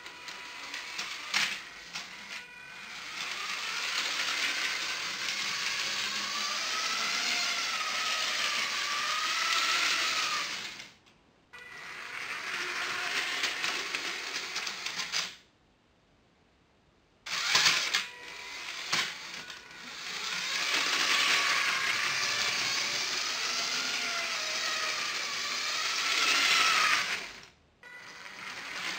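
Lego 9V train running on plastic track: the motor whines with a slightly wavering pitch over the wheel rattle, in long runs that stop and start. A few sharp mechanical clicks come near the start and again about two-thirds of the way through.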